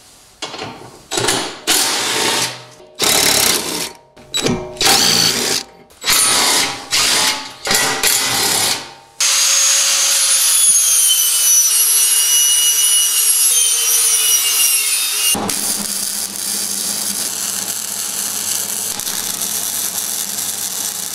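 Short bursts of a power tool, one after another, for the first nine seconds. Then an angle grinder runs steadily on the steel rack, its whine sinking slightly. From about fifteen seconds in, a wire-feed welder lays a bead with a steady hiss over a low hum.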